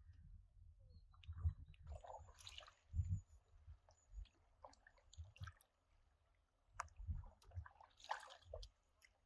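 Quiet canoe paddling: a paddle blade dipping and pulling through calm river water, with soft splashes and drips at each stroke. Soft low thumps sound underneath.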